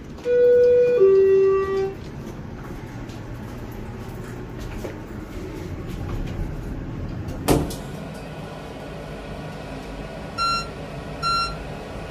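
Elevator arrival chime: two descending tones lasting about a second and a half, followed by the elevator's low steady hum, a single thump about halfway through, and two short high electronic beeps near the end.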